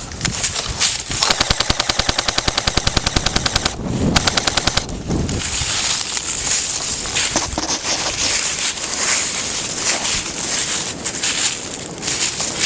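Airsoft rifle firing on full auto: a rapid, even string of shots starting about a second in and lasting a few seconds, followed by more rapid, less regular firing for the rest of the stretch.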